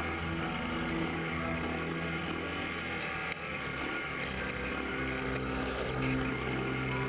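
Single-cylinder four-stroke engine of a 1984 Honda ATC 110 three-wheeler running under way, its pitch stepping up and down with the throttle, with a brief let-off a little after three seconds in.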